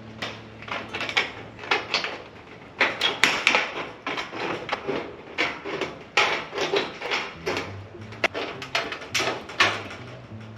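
Irregular sharp knocks and clatters from repair work on the chicken house's wood and metal, over quiet background music with a low bass line.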